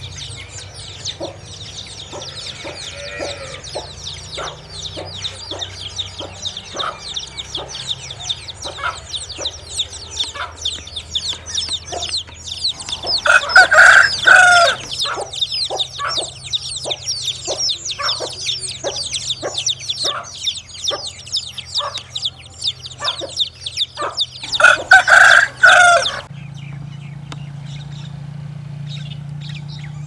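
A brood of chicks peeping continuously, high and fast, over a hen's regular clucking. A rooster crows twice, about halfway through and again near the end, and the crows are the loudest sounds. The chick peeping stops a few seconds before the end.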